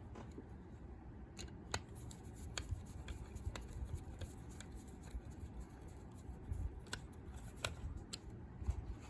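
Scattered small metal clicks and light scraping from handling a three-lever warded lever lock as its case is put back together.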